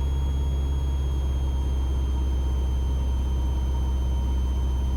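Mooney M20E's four-cylinder Lycoming IO-360 engine and propeller droning steadily in the cockpit, the constant-speed prop set to full forward for landing. A faint steady high whine runs underneath.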